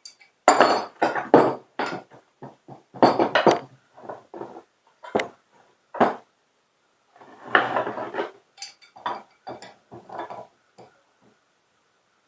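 Metal hydrant parts and hand tools clanking and scraping against each other in irregular bursts, some single knocks and some longer rattling scrapes.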